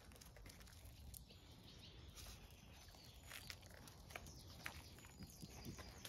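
Near silence: faint outdoor ambience with scattered soft ticks.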